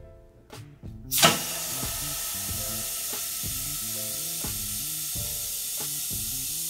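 Compressed nitrogen from a cylinder blasting through a line set made of clear hose, a steady loud hiss that starts suddenly about a second in. This is a nitrogen blow-out of an HVAC line set meant to push out oil and sludge.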